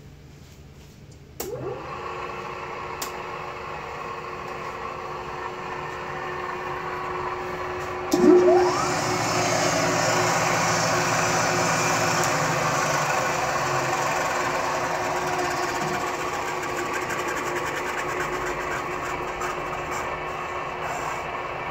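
Tree Tool & Die Works vertical machine's Fairbanks Morse induction motor switching on about a second and a half in, its whine rising as the spindle spins up and then running steadily. About eight seconds in a second rising whine comes, and the machine runs louder from then on.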